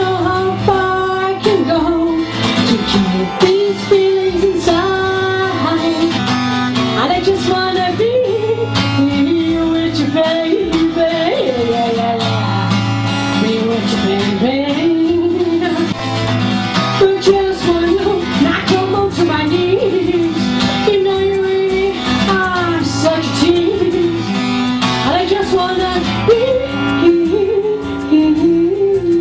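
A woman singing a song while accompanying herself on an acoustic guitar.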